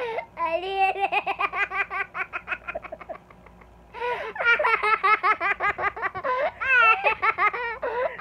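A young child laughing hard in quick, high-pitched ha-ha-ha pulses. The laughing breaks off for about a second halfway through, then starts again.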